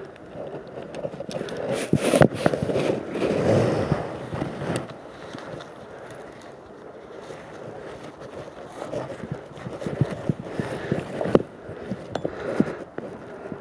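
Rustling and scraping with scattered sharp knocks and clicks, louder in the first few seconds, and wind buffeting the microphone; no saw is running.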